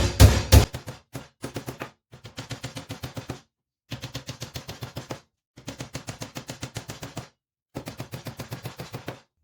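Hammer driving nails into the timber of a wooden hive box: rapid, evenly spaced strikes, about eight a second, in several short runs with brief gaps between them.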